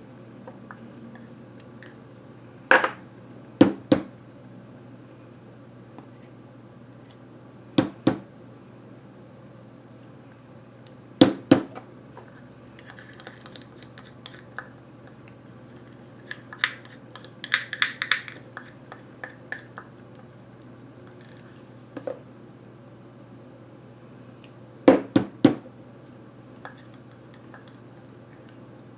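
A plastic squeeze bottle filled with thick acrylic paint is knocked down on a foam board several times, often twice in quick succession, to settle the paint to the bottom. In the middle a palette knife scrapes and clicks against the inside of a plastic paint jar, gathering the leftover paint.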